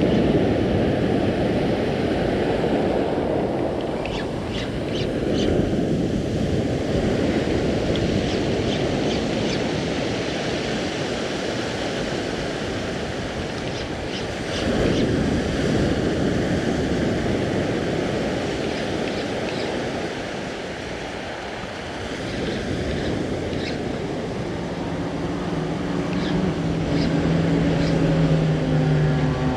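Ocean surf breaking and washing up a sandy beach in slow swells, with wind buffeting the microphone. A steady low hum joins near the end.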